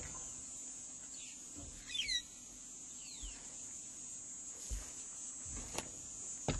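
Faint wild bird calls: three or four short, falling whistled notes in the first half, over a steady high hiss. A few soft knocks come in the second half.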